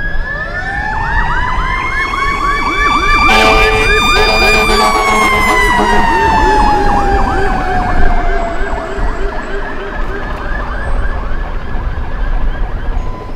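Fire engine sirens. One wail rises for about five seconds and then slowly falls away, over a fast-yelping siren that fades near the end. A short horn blast sounds about three and a half seconds in.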